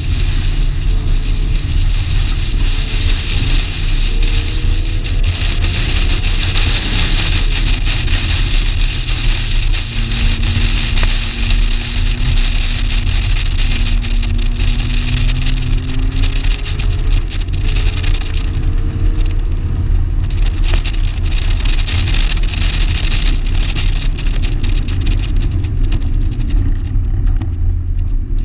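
1987 Shelby GLHS's turbocharged 2.2-litre four-cylinder engine running hard at track speed, its note climbing slowly in several long pulls, under a loud steady rush of wind and road noise.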